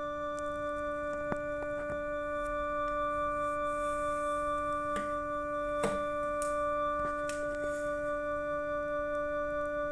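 Yamaha PSR-E263 portable keyboard holding one steady chord that does not fade, its loudness wavering gently. A few faint clicks sound over it.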